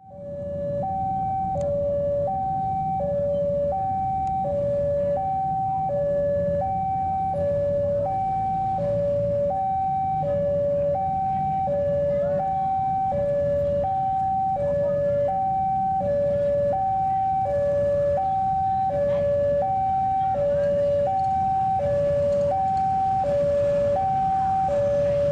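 Railway level crossing warning alarm sounding its two-tone electronic signal, a high note and a low note alternating evenly about once a second, starting just under a second in. It is the warning that a train is approaching and the barriers are down. Road traffic rumbles low underneath.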